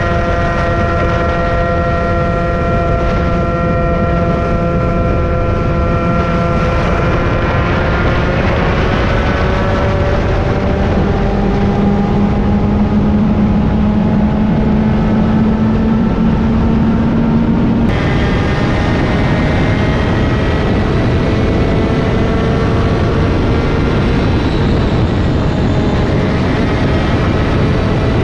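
IAME KA100 two-stroke kart engine running on track. Its pitch holds steady for several seconds, then climbs slowly as the revs rise. About two-thirds through, the sound breaks off abruptly and resumes at a lower pitch, climbing again.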